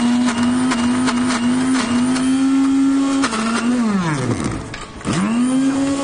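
Countertop blender running, puréeing a thick mix of boiled chickpeas and cauliflower, with scattered clicks. About four seconds in the motor winds down and stops for a moment, then starts again and spins back up to speed.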